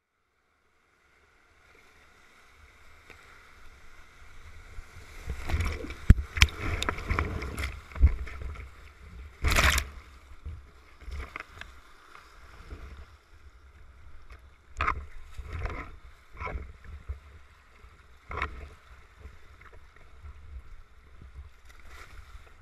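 Whitewater rapids rushing, with water splashing hard against the inflatable kayak and camera at the waterline. Silent for about the first two seconds, then building to the loudest splashes between about five and ten seconds in, with further scattered splashes later.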